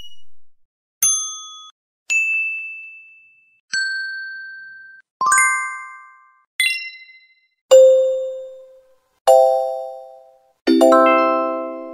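A series of about eight separate ding sound effects, one every second or so, each a struck chime tone that rings and fades out. The first few are high and thin; the last three are lower and fuller, like small bells.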